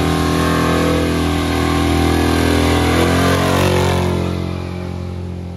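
Chevrolet S-10 pickup's engine pulling away under throttle with a loud exhaust note. It holds a steady pitch for about three seconds, then fades as the truck passes by.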